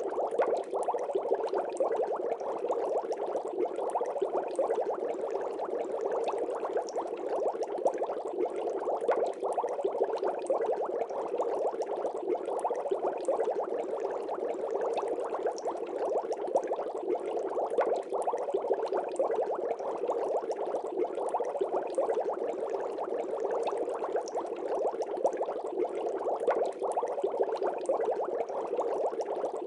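Continuous water bubbling: a dense, steady stream of small bubbles popping, with no change throughout.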